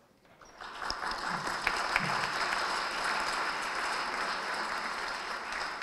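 Audience applauding: the clapping rises about half a second in, holds steady, and begins to thin out near the end.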